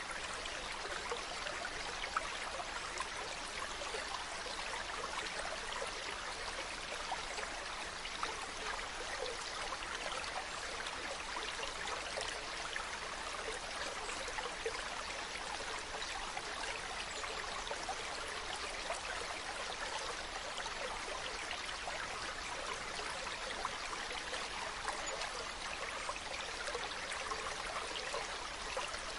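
Mountain stream running over rocks: a steady, even rush of water with small splashes and trickles.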